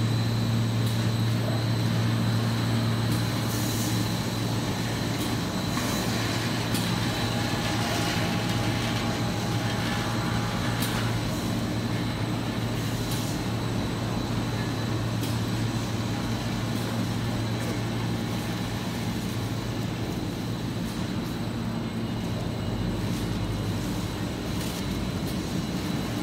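CPP cast film extrusion line running: a steady low machine hum with a thin, steady high-pitched tone over it and a few scattered clicks. The low hum drops away near the end.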